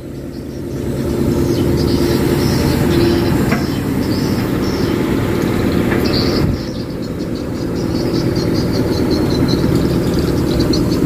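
Tracked excavator's diesel engine running, growing louder about a second in and easing briefly about two-thirds of the way through.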